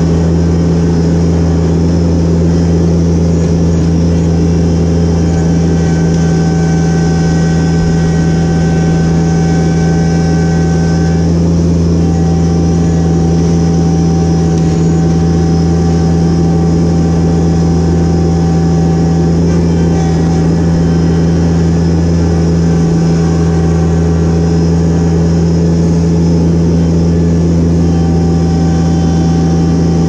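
Yanmar compact tractor's diesel engine running steadily under the seat as the machine is driven, with a thin whine that comes and goes above the engine note.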